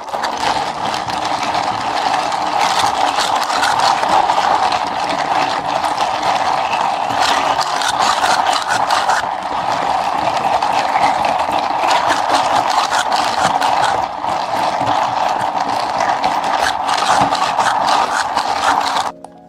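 Countertop blender running steadily for most of the time, with many small rattles through it; it starts and cuts off abruptly.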